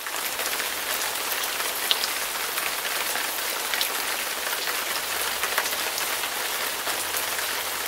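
A steady, even hiss dotted with many small ticks, starting suddenly and fading out near the end.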